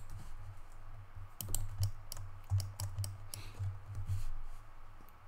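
Computer keyboard and mouse clicks, a scattering of light clicks at uneven intervals over a low steady hum.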